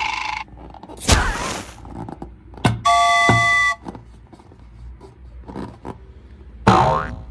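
A string of short edited sound effects: a noisy whoosh about a second in, a steady horn-like honk of several tones held for under a second around the middle, and a quick swooping sweep near the end.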